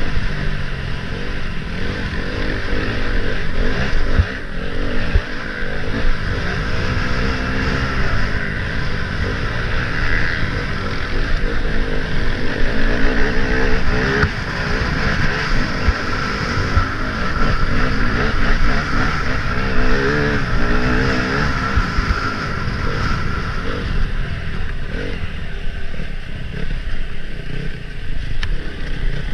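Enduro dirt bike engine heard onboard, revving up and falling back again and again as the bike rides a rough dirt track, with occasional knocks from the ride.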